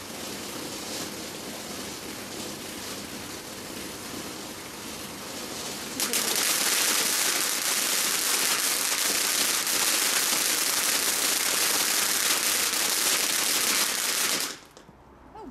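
Ground fountain firework hissing as it sprays sparks. About six seconds in the hiss turns suddenly much louder and denser, then it stops abruptly about a second before the end.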